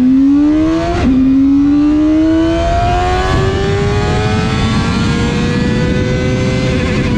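KOVE 450RR's inline-four engine pulling hard under acceleration. It is shifted up once, with a sudden drop in pitch about a second in, then it climbs again more slowly and levels off.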